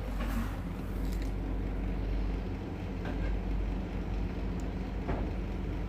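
A steady low hum with faint scrapes and taps from a spoon stirring semolina in a pan as water is worked in.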